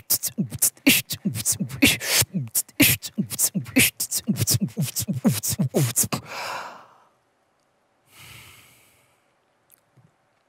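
Fast vocal beatboxing: mouth-made kick and snare sounds, several a second, with short dropping bass kicks. It stops about six seconds in and is followed by two breathy exhales.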